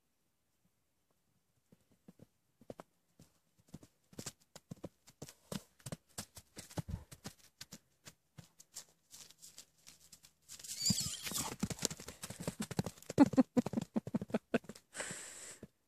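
A horse's hooves thudding on grassy turf as it trots, bucks and gallops, in irregular thumps that come thicker as it goes. The last five seconds hold a louder, dense stretch of noise and thumps.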